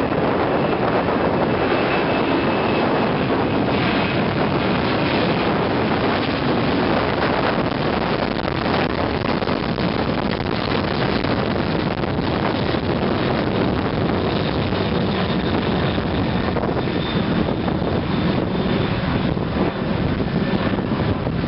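Boeing 747-300 jet engines running at climb power, a steady rumble as the airliner climbs away after takeoff, mixed with wind buffeting the microphone.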